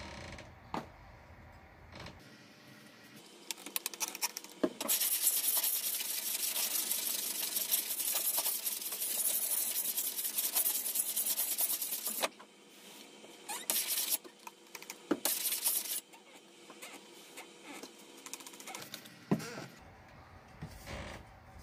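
A block rubbed by hand along a rusty, pitted steel crosscut saw blade, making a steady scraping hiss for about seven seconds, then a few shorter strokes, followed by lighter handling knocks.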